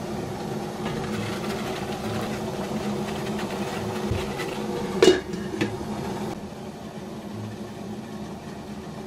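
Steady rumble and hiss of water boiling under a stainless steel steamer pot, with a sharp clink about five seconds in and a smaller one just after as the lid is set on; the boiling is a little quieter from then on.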